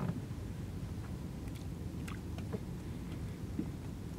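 Fine fishing net being hauled by hand over the side of a wooden boat: water dripping and trickling off the mesh, with a few light clicks of handling, over a steady low rumble.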